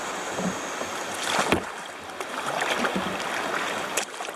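Kayak paddling on moving water: paddle strokes and splashing, with a sharp knock about a second and a half in and another near the end.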